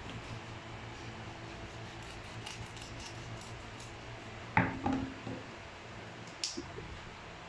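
Kitchen knife scraping and tapping against a plastic cutting board while a trevally is cleaned, with faint scattered ticks, then a sharp knock about halfway through and a few lighter knocks as the knife is laid down on the board. A single sharp click follows.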